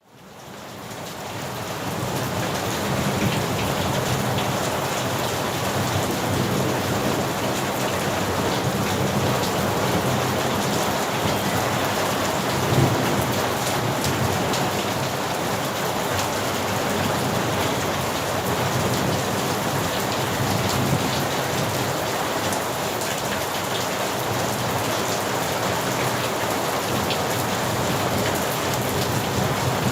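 Steady heavy rain falling, fading in over the first couple of seconds, with low rolling thunder rumbling through the first half and one louder peak about thirteen seconds in.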